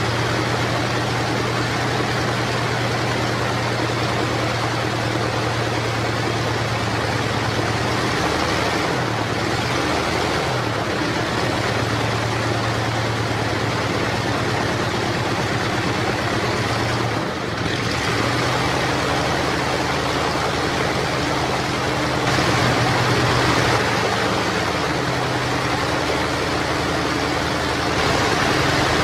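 Armstrong Siddeley Cheetah IX seven-cylinder radial aero engine running steadily on a test stand, driving its propeller. Its speed dips and recovers briefly twice, and it runs a little louder about two-thirds of the way through. This is the engine running after restoration.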